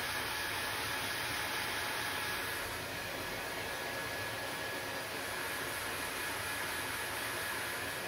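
Handheld hair dryer running steadily while being waved over hair: a constant rushing of air with a faint steady whine from its motor.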